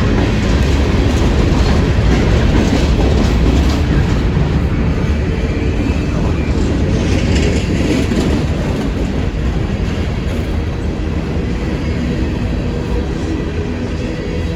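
Norfolk Southern loaded coal train rolling along the track: a loud, steady low running noise of the train under way, easing off slightly in the second half.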